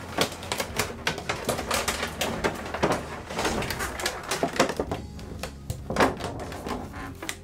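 Clear plastic packaging and a cardboard box clicking and crinkling in quick irregular bursts as a large vinyl figure is worked out of them.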